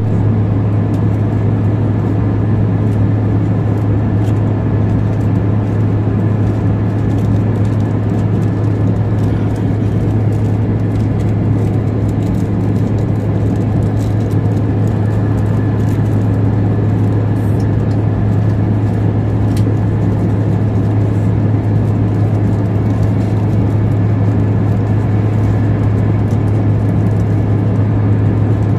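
Jet airliner cabin noise in cruise flight: the steady rush of the engines and airflow, with a constant low hum and no change throughout.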